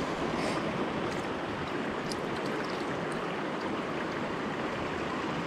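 Small mountain freestone creek running over rocks and riffles: a steady rush of water, with a few faint ticks.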